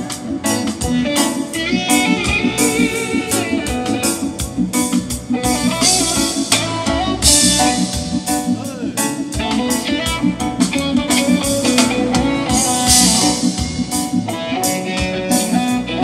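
Live band playing a steady groove: electric guitar over a drum kit with a regular beat, and keyboard.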